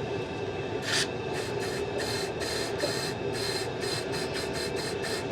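Short repeated hissing bursts of aerosol carburettor cleaner sprayed into a lawnmower carburettor with a stuck diaphragm, a few per second, stopping near the end. Underneath is the steady hum of a running gas boiler.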